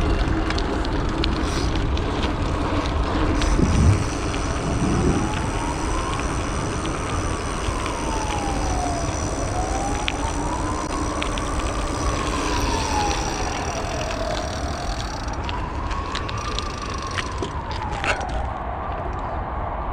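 An emergency-vehicle siren wailing slowly up and down, each rise and fall taking about five seconds, over a steady wash of city traffic and road noise; the siren fades out near the end.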